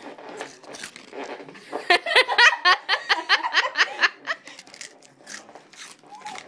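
A girl laughing in a burst of quick, repeated giggles that starts about two seconds in and lasts about two seconds, with light clicks and scrapes scattered around it.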